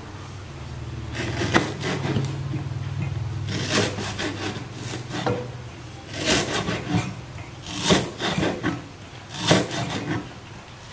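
Cleaver chopping lemongrass stalks on a wooden chopping board: a series of sharp knocks against the wood, one every second or two, some in quick clusters. A low hum sits under the first half and fades out about halfway.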